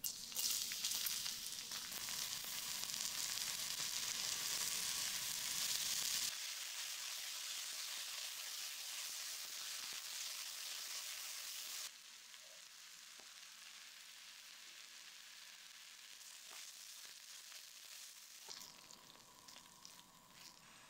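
Minced garlic and chopped onion sizzling as they fry in butter in a small pan, the sizzle loudest for the first six seconds and falling away in steps after that. Near the end there is a softer sizzle with a few light clicks of stirring.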